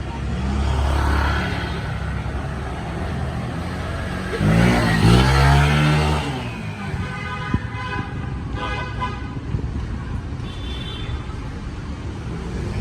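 Motorbike traffic: a motorbike engine passes close and loud about four and a half seconds in, its pitch bending up and down, over a steady background of engines. Brief horn-like tones sound later.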